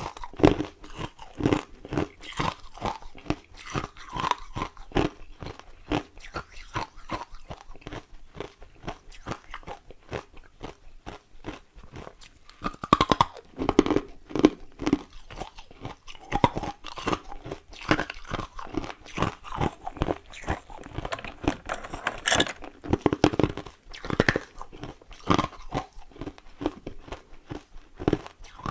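Close-miked biting and chewing of ice: a steady run of irregular crunches and cracks as the ice is crushed between the teeth. The crunching is densest and loudest in the middle of the stretch.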